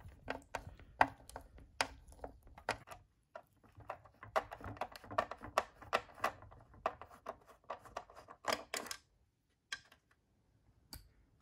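Small screwdriver backing screws out of a hard plastic display base: a rapid, irregular run of clicks and scrapes that thins to a few isolated clicks after about nine seconds.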